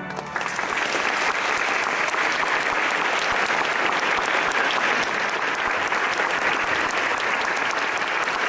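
Audience clapping in a large, very reverberant chapel, breaking out about a third of a second in as the tail of the pipe organ's final chord dies away, then going on steadily.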